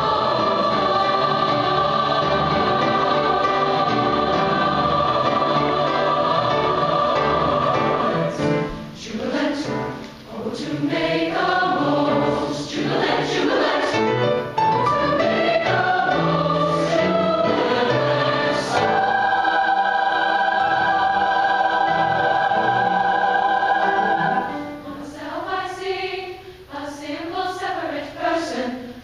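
Large mixed youth choir singing in harmony: a long held chord for the first eight seconds or so, then a moving passage, another held chord from about nineteen seconds in, and softer moving lines near the end.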